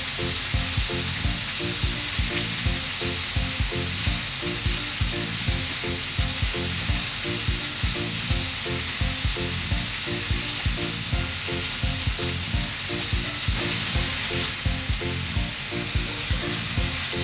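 Chicken wing drumettes searing in hot oil in an enamelled cast iron pan: a steady sizzle as they brown undisturbed.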